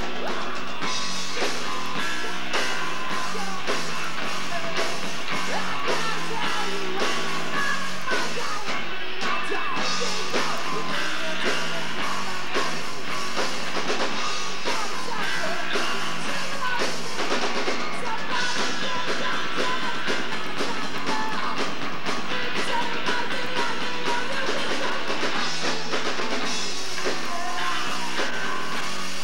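Live rock band playing: drum kit, electric guitar and bass with a lead singer at the microphone, at a steady loud level.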